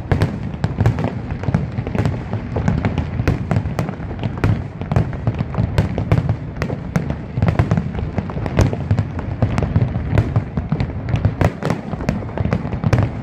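Aerial fireworks display in full barrage: shells burst one after another in a rapid, unbroken string of sharp bangs and crackles over a continuous deep booming.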